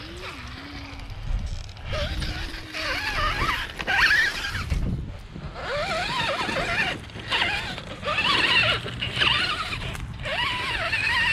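Electric RC rock crawler's motor and gear drivetrain whining in short throttle bursts, the pitch rising and falling as the car crawls over rough ground.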